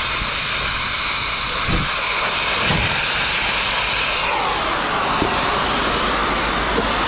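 Cutting torch flame hissing steadily as metal is cut, its tone shifting about four seconds in.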